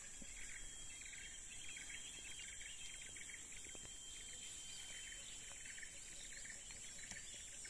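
Tropical forest-edge ambience: a steady high-pitched insect drone with a quick, repeated chirping running through it.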